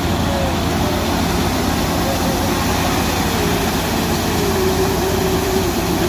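Combine harvester running while stationary, its diesel engine and threshing machinery giving a steady, loud mechanical drone as it unloads straw and chaff.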